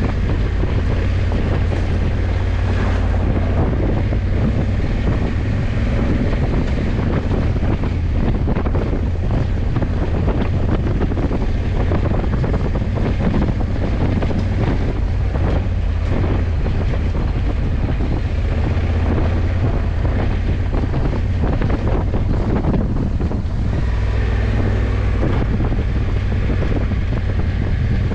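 Wind rushing over the camera microphone on a moving motorcycle, with the low, steady drone of a Honda CRF1100 Africa Twin's parallel-twin engine and road noise underneath, at a constant speed.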